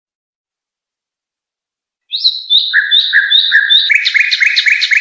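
A caged songbird singing the song phrase called 'al-Haddad' (the blacksmith): a string of evenly repeated chirping notes. The notes start about two seconds in and come quicker and denser about four seconds in.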